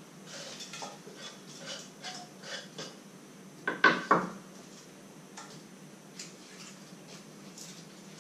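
Kitchen knife cutting potatoes on a wooden chopping board: a quick run of light taps and scrapes, then two loud knocks close together about four seconds in, followed by a few scattered taps.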